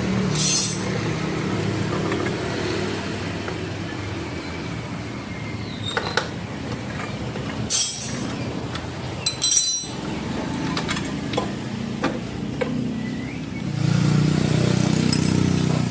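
A handful of sharp metal clinks from a wrench on the scooter's exhaust mounting bolts, over a steady low mechanical hum that swells near the end.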